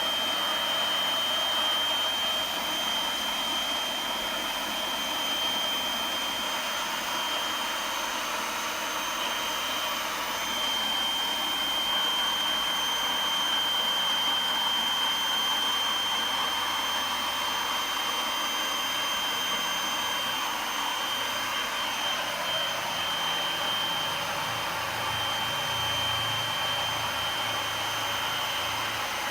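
Makita DUB182 18 V cordless blower running steadily with a high whine over rushing air as it inflates an inflatable boat. A lower hum joins in about three-quarters of the way through.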